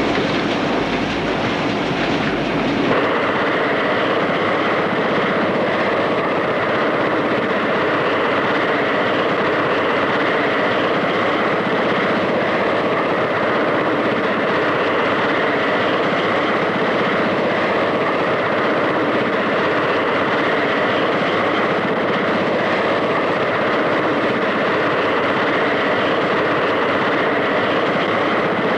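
Steady, loud engine drone of an aircraft in flight, beginning abruptly about three seconds in after a lower hum.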